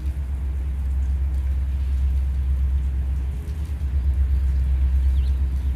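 A steady low rumble, with rain falling.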